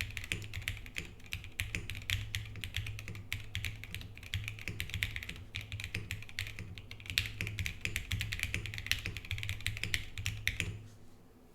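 Fast continuous typing on a Geonworks Frog TKL mechanical keyboard with SP-Star Meteor White switches, PBT keycaps and an aluminum plate on rubber tadpole mounts: a dense patter of keystrokes that stops near the end.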